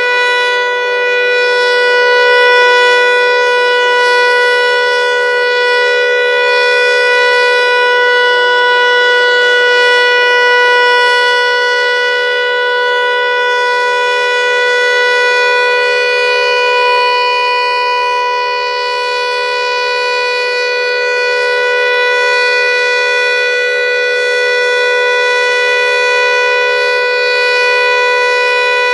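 Federal Signal Eclipse 8 electronic outdoor warning siren sounding its steady Alert signal: a loud, unwavering chord of tones with no rise or fall. The lowest note drops out about a third of the way through, and a faint low buzz runs underneath.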